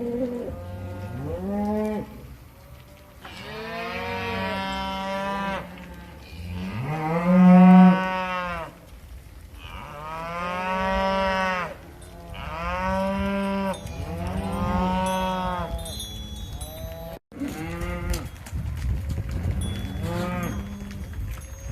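A herd of cattle mooing, one long call after another, about eight in all; each moo rises and then falls in pitch, and some calls overlap as different animals call in turn.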